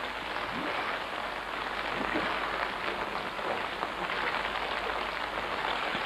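Steady crackling rush of moving water from the flooded, sunken car.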